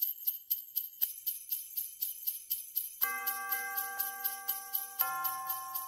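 Intro music: a steady high jingling rhythm, about four or five shakes a second, joined about three seconds in by a held chord that changes about two seconds later.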